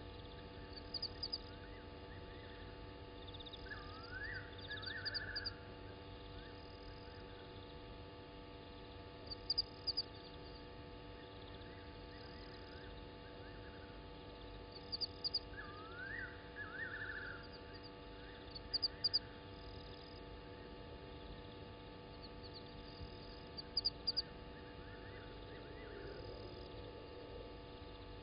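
Night ambience at a waterhole: short clusters of three or four high chirps every few seconds from calling animals, and twice a lower call that sweeps up and ends in a quick trill, over a faint steady hum.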